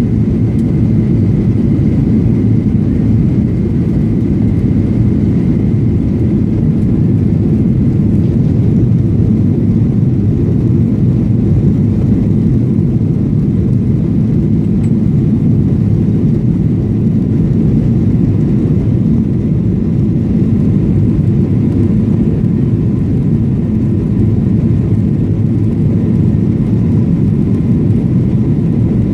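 Cabin noise of a Boeing 737-800 climbing after takeoff: its CFM56 turbofan engines run at climb power, a loud, steady low drone with a faint whine over it.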